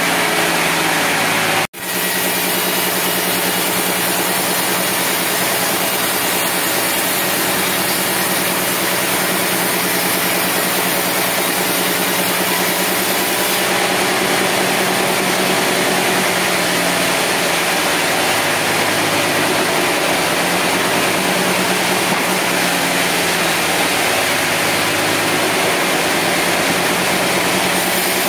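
Band sawmill and the engine that drives it running with a continuous steady mechanical drone. The sound cuts out for an instant about two seconds in.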